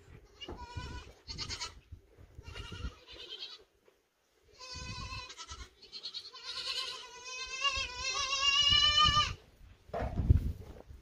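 Boer goat kids bleating: a few short calls, then longer ones, the last drawn out and wavering, with a low bump near the end.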